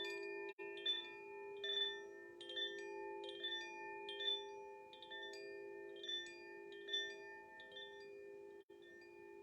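Koshi air-element wind chime tinkling, its tuned rods struck about once a second in a gentle, irregular rhythm. Underneath runs a low, steady ringing tone.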